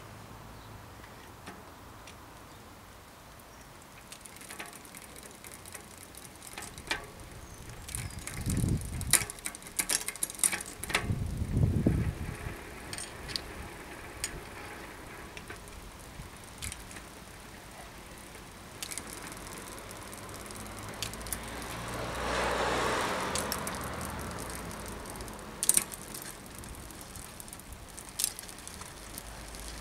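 Intermittent metallic clicks and rattles from a bicycle drivetrain being worked on: a Shimano Deore rear derailleur being adjusted with a hex key, with the chain and cassette. There are two low thuds about a third of the way in and a broad swell of noise about three quarters of the way through.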